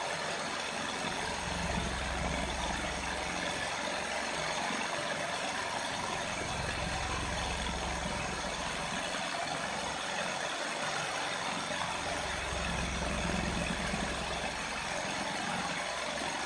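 Model V4 four-cylinder Stirling engine running steadily, giving an even mechanical whirr from its pistons, flywheel and belt-driven generator. A low rumble swells and fades three times.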